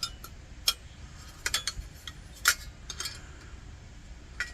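Sharp, irregular metallic clicks and clinks of a wrench and small metal lantern parts being handled, the loudest about halfway through.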